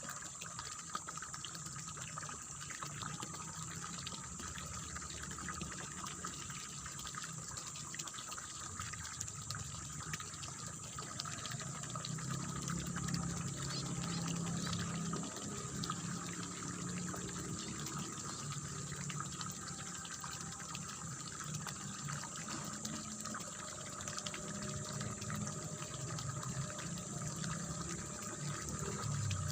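Water running and splashing steadily in a rice paddy, a continuous babbling flow that swells a little about halfway through and again near the end.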